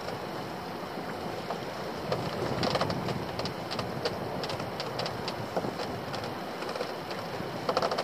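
Steady wind and sea noise around a small open fishing boat, with scattered light clicks and knocks as rope and a lobster pot are handled over the side.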